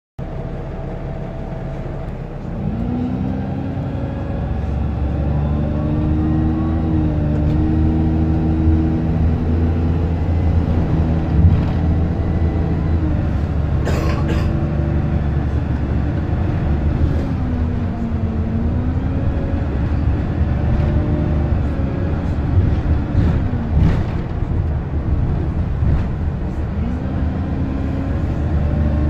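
Optare Versa single-deck bus heard from inside the saloon while under way: its engine and drivetrain tone rises and falls several times as the bus speeds up and slows, over a steady low rumble. A few short knocks and rattles come through, the sharpest about halfway through.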